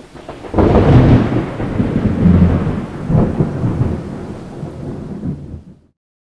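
Thunder sound effect with rain hiss, used as a logo sting: a loud low rumble breaks about half a second in, a second crack follows about three seconds in, and the rumble fades before cutting off just before the end.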